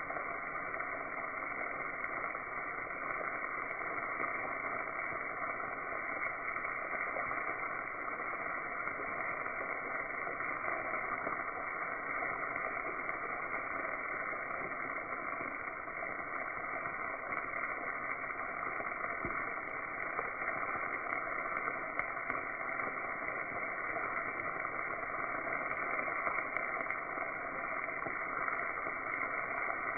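Breaded morel mushrooms frying in a pan of hot fat: a steady sizzling hiss with scattered small pops and crackles, which come more often in the second half.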